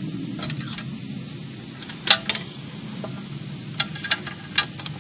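A few sharp metal clicks and taps as a bolt is fitted up through a hole in a motorcycle skid plate, over a steady low hum.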